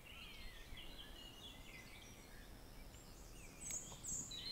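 Faint birdsong: several small birds chirping and warbling, with two brief high-pitched chirps a little before the end, over soft steady background noise.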